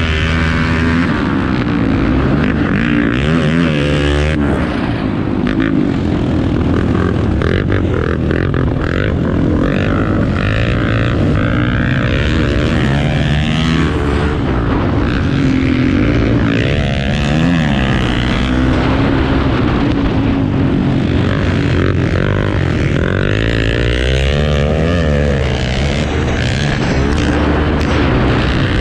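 Off-road motorcycle engines running hard, revving up and down. Several engines are heard at once at differing pitches.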